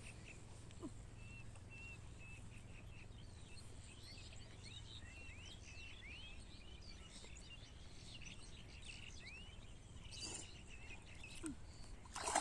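Birds chirping, many short rising and falling calls, over a steady low outdoor noise, with a brief louder noise burst near the end.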